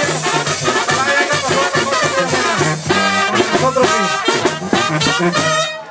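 Live tamborazo brass band playing: sousaphone, trombones and trumpets over a steady drum beat. The music breaks off near the end.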